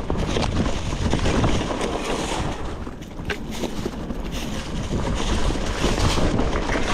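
Wind on the microphone over the rattle and crunch of a titanium hardtail mountain bike descending a rough singletrack, its tyres running over dirt, leaves and stones. Frequent small knocks run through it as the bike shakes over the rough ground.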